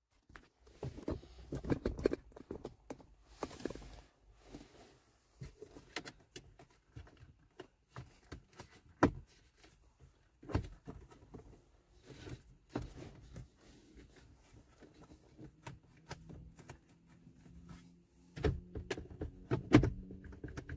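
Plastic instrument-cluster surround being pressed and worked into the dashboard: scattered clicks, knocks and rustling as its trim tabs seat, with a couple of sharper clicks about nine and ten seconds in and a busier run of knocks near the end.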